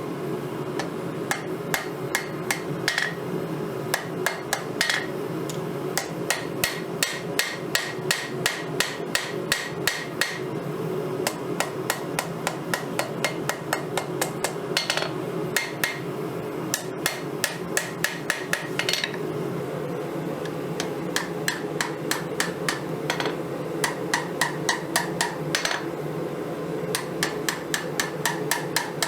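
Hammer blows on a steel file being forged into a knife blade on an anvil: quick runs of sharp ringing strikes, two or three a second, with short pauses between runs. A steady low hum runs underneath.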